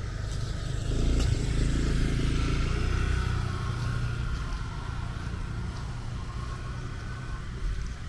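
A motor vehicle engine passing close by, loudest for about two seconds starting a second in and then fading, over a steady low rumble.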